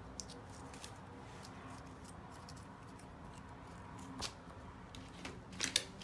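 Plastic parts of a Roborock robot vacuum being handled during cleaning: a few light clicks and taps, with a quick cluster of louder clicks and rustling near the end, over a faint steady background.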